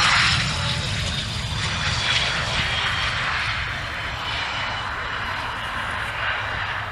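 Jet aircraft engine noise after takeoff as the jet climbs away: a dense rushing sound with a thin high whine, loudest at the start and slowly fading.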